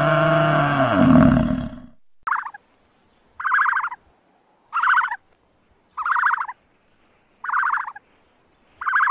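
A water buffalo's long, low moo, ending about two seconds in. Then six short rattling bird calls follow at even spacing, about one every second and a bit.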